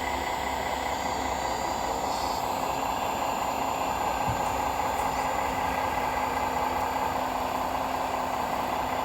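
Radio-controlled model truck running with a steady, idling engine-like drone.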